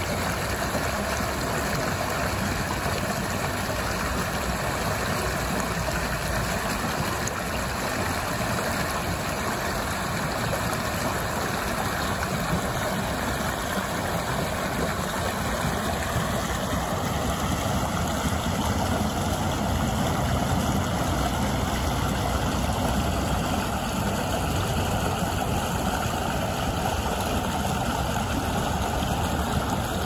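Creek water rushing and splashing over a submerged log in a steady, unbroken rush.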